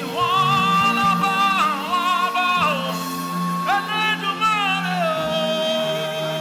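Worship singing: a voice holds long notes with vibrato in a few drawn-out phrases over a steady backing of sustained chords.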